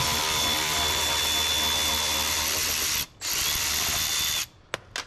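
Power drill spinning steadily to back out a screw, with a steady whine. It stops for a moment about three seconds in, runs again for about a second and cuts off, then two small clicks follow.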